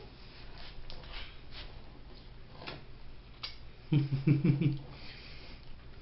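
Faint light taps and clicks of hands and a utensil on the table while frosting is spread on cookies. About four seconds in comes a man's short, low vocal sound in a few quick pulses, the loudest thing heard.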